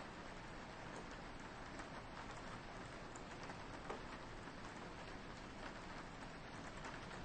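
Soft rain falling steadily on a window, an even hiss with scattered individual drops ticking, one slightly louder near the middle.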